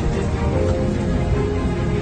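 Background music with held notes over a heavy low end.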